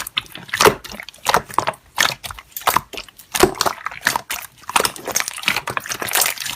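Slime being squished and worked by hand, giving irregular wet clicks and pops.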